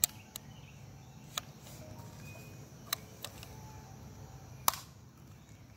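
A pump BB gun firing: two loud sharp snaps about four and a half seconds apart, with several fainter clicks in between.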